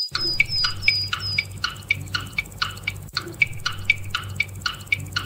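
Countdown timer sound effect: quick, pitched clock-like ticks, about three to four a second, over a low steady hum, marking the seconds left to answer.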